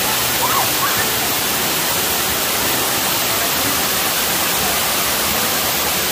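Waterfall cascading over stepped rock ledges: a steady, loud rush of falling water.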